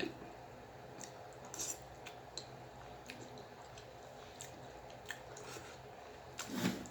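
Faint chewing of a mouthful of food, with a few soft, scattered mouth clicks and smacks.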